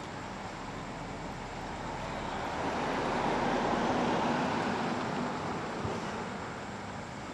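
A vehicle passing by: a rushing noise that builds to a peak about halfway through and then fades away.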